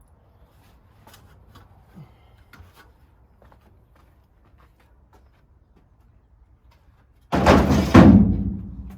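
Light scattered knocks and clicks of hands-on work, then two loud booming thuds close together near the end, ringing out low and fading.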